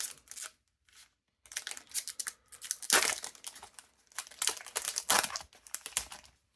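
Foil trading-card booster pack crinkling and tearing as it is opened and handled, in irregular rustling bursts with a brief pause about a second in.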